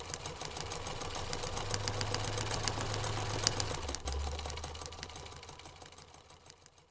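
Sewing machine running: a rapid, even ticking over a low motor hum. It grows louder through the middle, the hum drops in pitch about four seconds in as the machine slows, and it fades out near the end.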